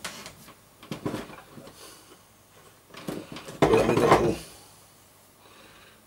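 Light clicks and taps from handling the opened plastic joystick housing and its switch contacts, with a louder, noisy rustle lasting under a second about three and a half seconds in.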